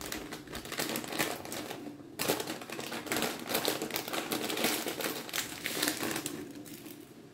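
Plastic bag of sesame seeds crinkling and rustling as it is handled and opened: a dense run of small crackles with a short break about two seconds in, thinning out near the end.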